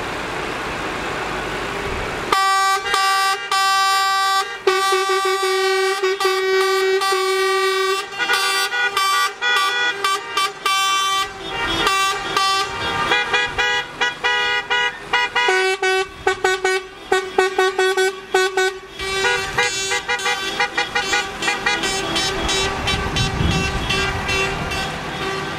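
Horns of a passing vehicle convoy honking over traffic noise, starting about two seconds in: many overlapping short toots and longer held blasts from car and truck horns.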